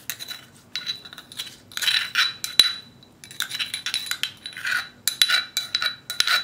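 A metal spoon scraping and clinking against a small bowl as crushed mint leaves are scraped out into a glass bowl: repeated short scrapes and sharp clicks.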